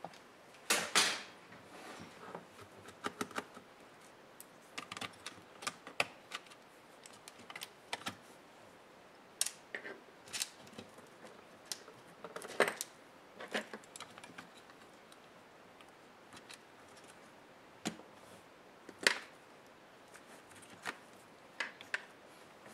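Irregular clicks, taps and light clatter of plastic and small metal parts being handled while a laptop is taken apart with small tools, with a few louder knocks about a second in and again near the end.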